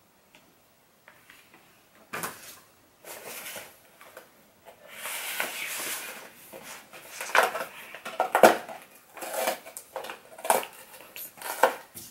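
Cardboard toy packaging and a paper checklist being handled: rustling and a series of light knocks and clicks, which come more often in the second half.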